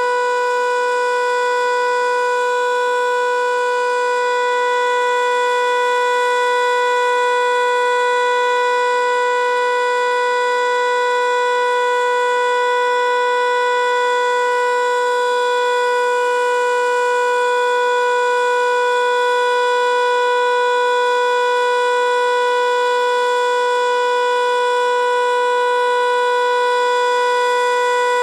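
American Signal Corporation T-121 outdoor warning siren sounding the Alert signal: one loud, steady tone held at constant pitch, during its scheduled monthly test.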